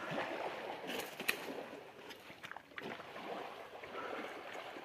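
Sea water washing over the rocks of the shoreline, with a few small clicks, about a second in and again near the middle.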